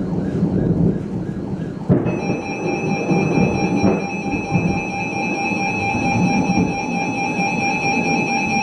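Weather radio alert tone: a steady, shrill tone that switches on abruptly about two seconds in and holds, signalling that a warning is about to be broadcast. A steady rushing noise runs underneath.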